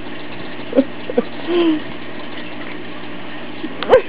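Australian shepherd making a few short vocal sounds while being rubbed and teased, the loudest a sharp one near the end, over a steady background hum.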